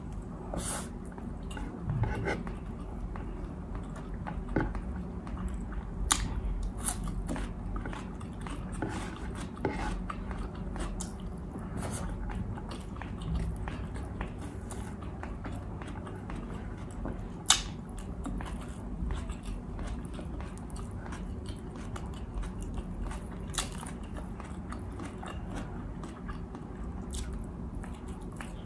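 A person chewing and eating beef steak close to the microphone: a continuous run of soft mouth clicks and smacks, with a few sharper clicks, the loudest about two-thirds of the way through.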